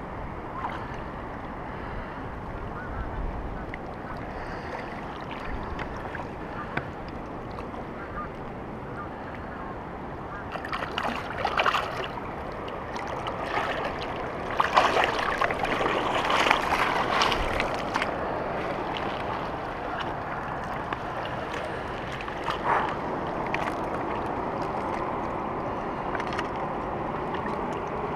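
Water lapping at a rocky shoreline, with a stretch of splashing and clattering from about ten seconds in until about eighteen seconds as a hooked smallmouth bass is landed at the water's edge.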